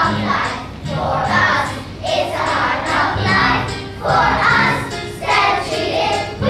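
A group of children singing a song together, in short phrases of about a second each.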